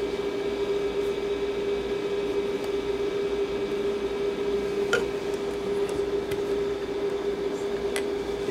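Steady machine hum with one strong low tone held throughout, and two sharp clicks about five and eight seconds in.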